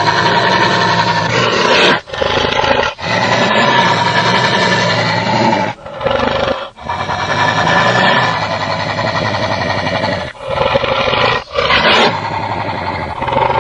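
Creature sound effects of Blackmoon: a run of long, loud roars, each broken from the next by a short pause.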